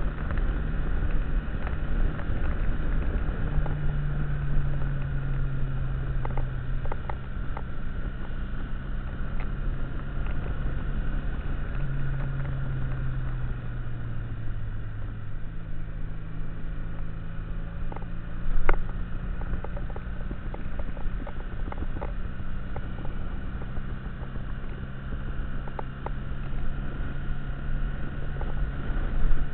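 Motorcycle engine running at road speed, its note stepping and sliding up and down with throttle and gear changes, over a steady low rumble of wind and road. A single sharp knock sounds about two-thirds of the way through.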